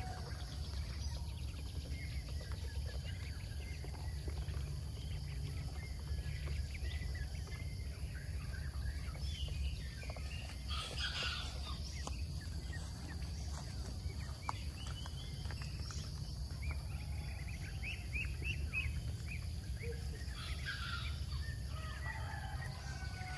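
Young ducks peeping in short, scattered high calls, busiest in the second half, over a steady low rumble.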